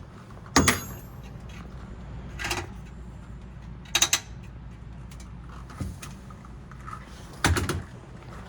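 Sharp metal clicks and clacks as a bicycle's front fender stays are fitted into place, about five separate knocks with a double click about halfway and a short cluster near the end.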